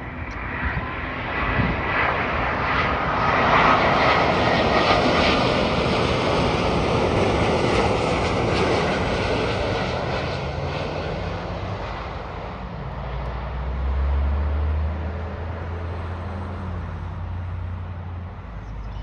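Airbus A350-941 jet airliner passing by, its two Rolls-Royce Trent XWB turbofans heard as a loud engine noise that builds over the first few seconds, peaks, then slowly fades. A low rumble comes in near the end as it moves away.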